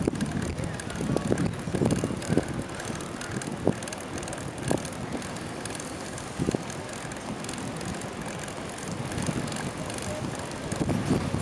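A bicycle in motion on a paved road, wind rushing and buffeting over the microphone with a low rumble. A handful of sharp, separate knocks come in the first half, with the rumble swelling again near the end.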